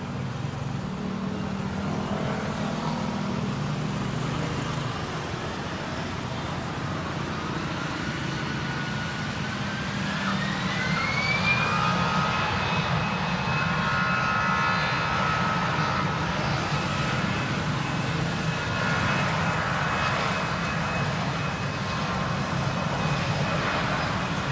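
Airliner engines spooling up for takeoff: a whine rises in pitch over several seconds, then holds steady over a low engine rumble as the sound grows louder.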